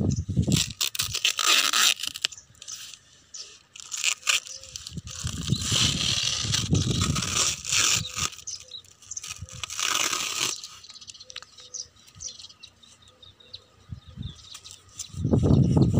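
Clear packing tape being peeled off and plastic wrap crinkling as foam packaging is unwrapped, in several bursts of rustling and tearing.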